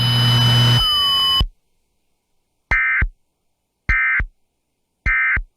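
Emergency Alert System end-of-message data signal: three short, identical, buzzy digital data bursts about a second apart, each roughly half a second long. This is the 'NNNN' code that marks the close of the alert. Before them, a steady electronic hum cuts off about a second and a half in.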